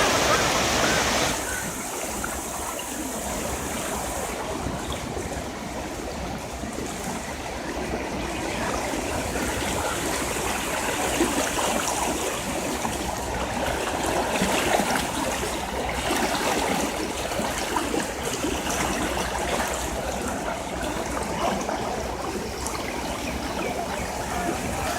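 Floodwater flowing steadily, a constant noise of moving water, with a brighter, louder hiss in the first second or so.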